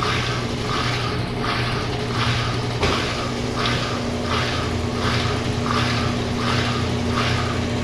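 Brastemp Clean 10 kg top-loading washing machine in its spin cycle with a tent inside: a steady motor hum, with a rhythmic swish that comes back about every 0.7 seconds.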